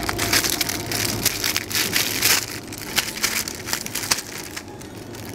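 Thin clear plastic bag crinkling and rustling right against the microphone, dense crackling that thins to a few scattered crackles about halfway through.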